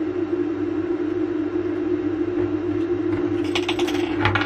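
A steady low hum, with a few short sharp clicks about three and a half to four seconds in as a port connector is pressed and worked loose from the circuit board.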